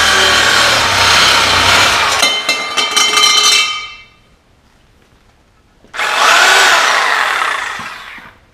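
A power tool cutting through a steel exhaust extension pipe, in two bursts: a loud stretch of about four seconds with metallic ringing near its end, then after a short pause a second cut of a couple of seconds whose pitch rises and then falls away.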